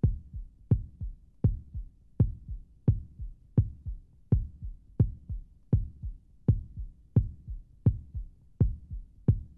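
A steady, heartbeat-like pulsing beat of low thumps. Strong beats come about four every three seconds, each with a sharp click on top, and a softer thump falls between them.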